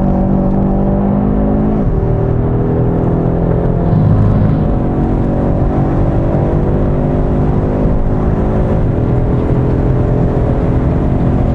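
Audi RS3's 2.5 TFSI turbocharged five-cylinder engine under hard acceleration, heard from inside the cabin. Its pitch climbs through each gear and drops at the upshifts of the seven-speed dual-clutch gearbox, about two seconds in and again near nine seconds.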